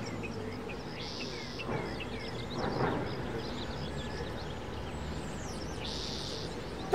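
Small birds chirping in short repeated calls over a low, steady background rumble of outdoor ambience.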